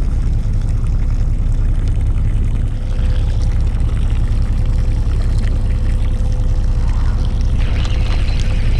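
Fishing boat's engine running with a steady low rumble, with water splashing and hissing that grows about three seconds in and again near the end.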